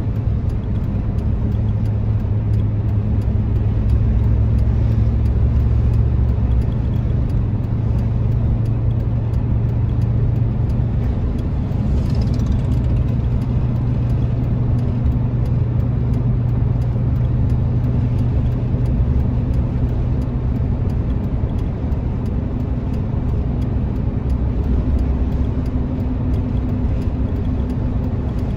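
Road noise inside a moving car's cabin: a steady low engine and tyre hum that stays even throughout.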